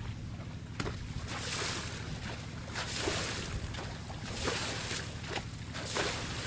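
A steady low engine hum, with rhythmic sloshing or splashing of water swelling about every second and a half.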